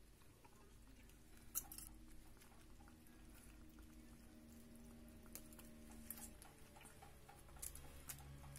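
Ferret lapping water from a plastic bowl: faint, quick wet clicks, with one louder click about one and a half seconds in.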